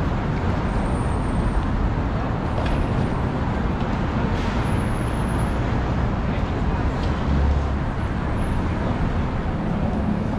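City street traffic: a steady rumble of cars and buses going by, with a short, deeper swell of engine rumble about three-quarters of the way through.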